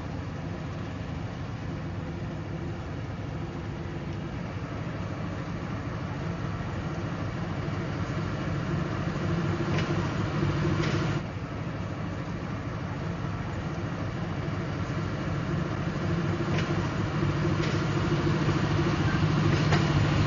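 Diesel shunting locomotive's engine running as it approaches, its steady note growing louder toward the end. The level drops suddenly about eleven seconds in, then builds again.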